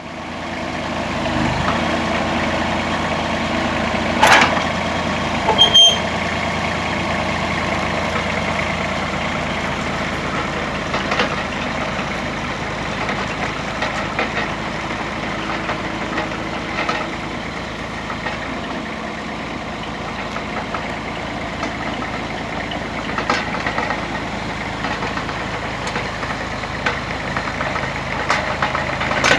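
Ditch Witch XT850 excavator tool carrier's engine running steadily, with two sharp metal clanks about four and six seconds in, the second ringing briefly, and lighter knocks now and then as an attachment is changed.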